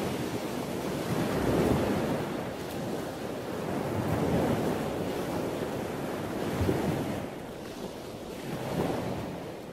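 Ocean surf and wind: a rushing wash that swells and ebbs every two to three seconds, fading out near the end.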